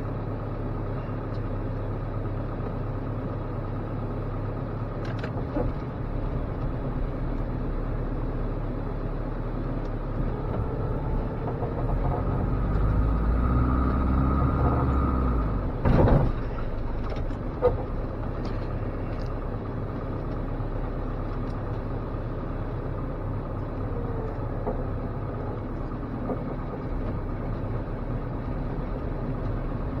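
1987 Dodge Raider engine running as heard inside the cab while the truck plows snow, growing louder for a few seconds around the middle as it pushes under load. This ends in one sharp, loud knock, with a lighter click a moment later.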